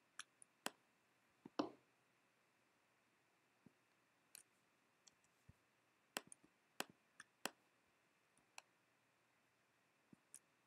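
Scattered computer mouse clicks over near-silent room tone, a few early on and a quick cluster of about half a dozen about six to seven and a half seconds in.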